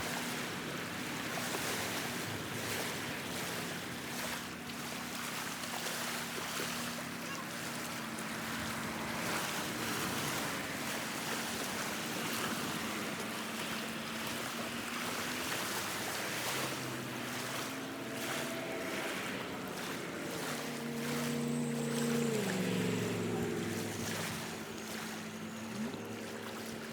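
Sea waves washing over a rocky shore with wind buffeting the microphone, under a low steady hum that shifts up and down in pitch in the last several seconds.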